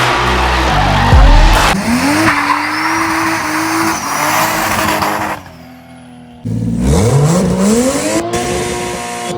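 A car engine revving high and holding its revs while the tyres squeal in a drift. About five seconds in the revs and tyre noise drop away, then a second later the engine climbs again and holds high.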